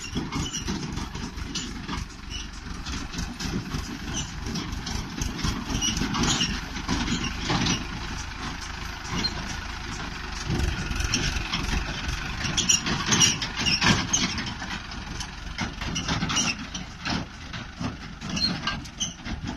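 JCB backhoe loader's diesel engine running under load, with irregular knocks and clatter throughout as it works the fill.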